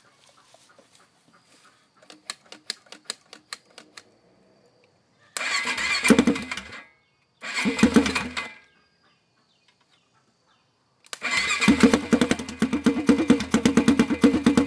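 2004 Honda TRX400EX's freshly rebuilt single-cylinder four-stroke engine being cranked by its electric starter on its first start, the starter solenoid jumped by hand. A run of sharp clicks comes first, then three bursts of cranking: two short ones and a longer one of about four seconds with an even rhythmic pulse.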